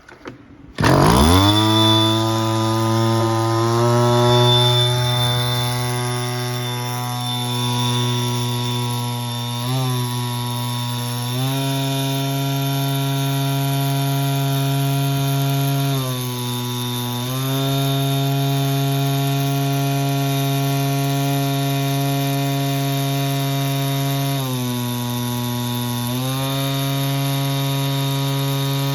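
Maruyama MS035D-1 backpack power sprayer's small engine catching about a second in and revving up, then running steadily. Its speed steps up and back down several times.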